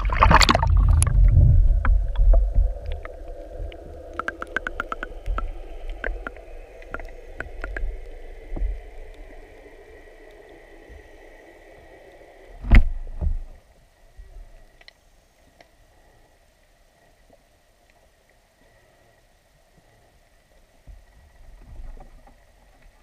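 A GoPro in its waterproof housing plunging into seawater: a loud splash and rush of water for about two seconds, then scattered clicks and a bubbly wash that fades as it sinks. There is one sharp knock about 13 seconds in, and after that only a faint underwater hiss.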